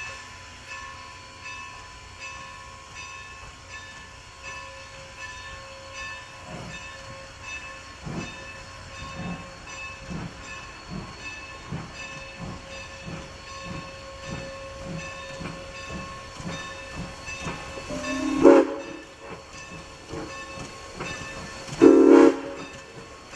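1906 Baldwin 4-8-0 steam locomotive No. 475 working toward and past the listener, its exhaust chuffing about twice a second and growing louder as it nears. Two loud steam-whistle blasts sound near the end, the second a little longer.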